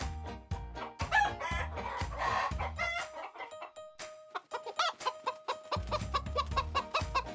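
Chicken sounds over children's background music with a steady beat: a rooster crowing about a second in, then a run of short hen clucks once the beat returns near the end.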